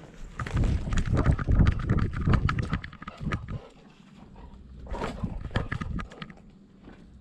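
A dog running on a trail: quick, irregular pawfalls and jostling knocks, loudest in the first half, then a shorter bout about five seconds in.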